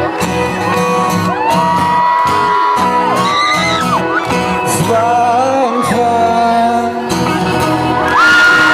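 Live pop-rock band music with sung notes that slide and are held, as the song winds up. Shortly before the end, a crowd starts cheering and screaming.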